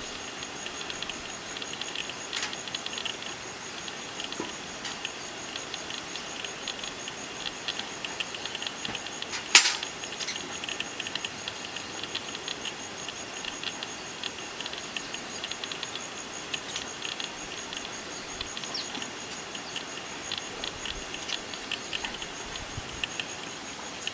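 Steady high-pitched insect trill over a scatter of small clicks and chirps, with one sharp click about ten seconds in.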